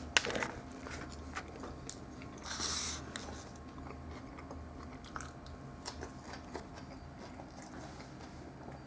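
A person biting into and chewing a steak and cheese sub topped with jalapeno peppers, its crispy bread giving small crunches and mouth clicks, with a louder burst about two and a half seconds in.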